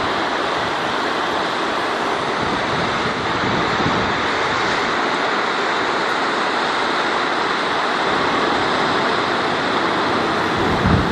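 Fast river rapids rushing: a steady, loud wash of whitewater, with a brief low bump from wind or handling on the microphone near the end.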